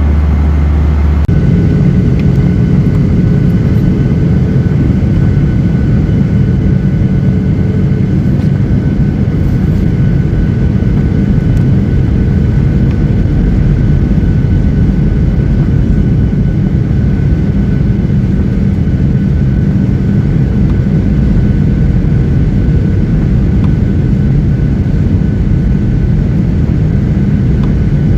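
Steady roar of a Boeing 737-800's CFM56 turbofan engines heard inside the cabin, with a faint steady whine over it. The sound shifts abruptly about a second in.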